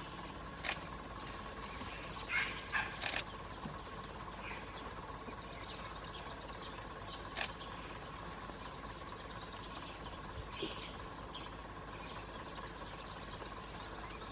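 Steady outdoor background hiss with a faint constant hum, broken by a few sharp short clicks and faint bird chirps.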